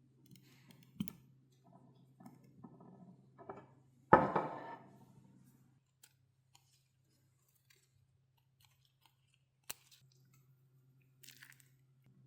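Kitchen food-preparation handling sounds: small clicks and rustles, one loud knock about four seconds in, and a sharp click near the end, over a low steady hum.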